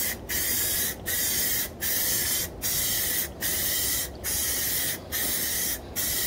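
Aerosol can of Rust-Oleum Ultra Cover gloss white spray paint hissing in about eight short bursts, each under a second, with brief breaks between them.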